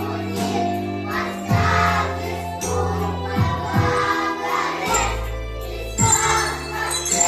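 A song playing: sung voices over backing music with a steady beat and jingling bells.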